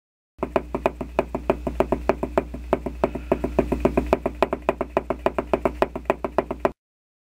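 Footstep sound effect: a fast, even run of hard knocks, about five or six a second, over a low steady hum, starting and stopping abruptly.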